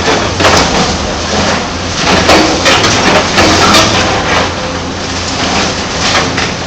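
Hyundai 290 LC-9 excavator's diesel engine running steadily, with rock and soil crunching and pouring in several loud rushes as the bucket works the load.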